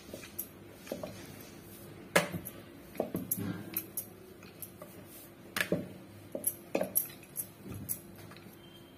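Wooden rolling pin working a thick round of wheat-and-jaggery dough on a wooden board, with sharp clicks and knocks of the pin and hands against the board at irregular intervals, several close together in the second half, over a faint steady hum.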